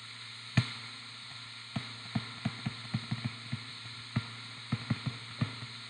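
Stylus tapping and clicking on a touchscreen during handwriting: one sharp click about half a second in, then a string of light, irregular taps. A steady electrical hum runs underneath.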